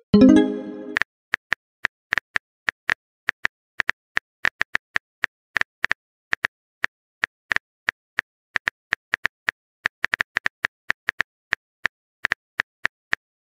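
Phone keyboard typing sound effect: a long run of short, irregular clicks, about three to five a second. It opens with a brief pitched message-pop sound lasting about a second.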